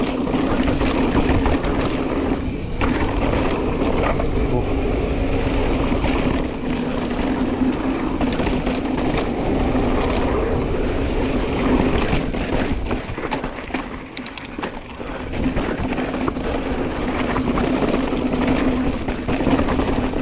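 Chromag Taival hardtail mountain bike riding fast down dry dirt singletrack. Wind rushes over the camera's microphone, with tyre noise and chain and frame rattle over the bumps. The noise eases briefly about two-thirds of the way through.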